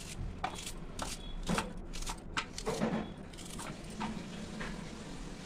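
Small kitchen knife cutting a raw onion held in the hand over a steel plate: crisp, unevenly spaced cuts, about two a second.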